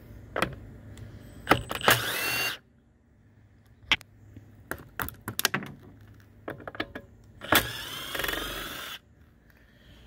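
Power drill with a nut driver spinning out the 5/16 bolts that hold a push mower's recoil starter cover: two short runs of the motor, about 2 s in and again near 7.5 s, the second lasting about a second and a half. Between the runs come light clicks and knocks of the tool and bolts being handled.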